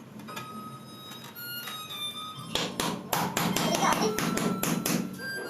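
Quick hard taps on ceramic floor tiles, the kind of tapping used to find hollow, loosely bonded tiles. The taps come faster and louder from about halfway through.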